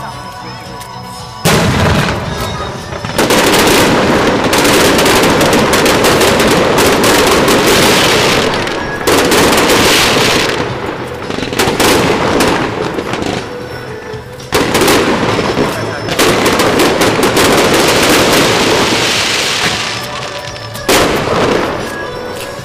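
Aerial fireworks shells bursting in waves, each set of bangs followed by several seconds of dense crackling.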